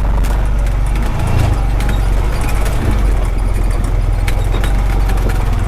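Honda Pioneer 520 side-by-side's single-cylinder engine running steadily under way, with scattered light clicks and knocks over the top.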